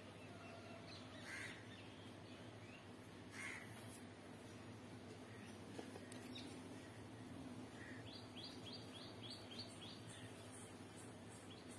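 Faint birds: two soft crow caws in the first few seconds, then a quick run of about eight short chirps near the end, over a faint steady background. There is one faint click just before the middle.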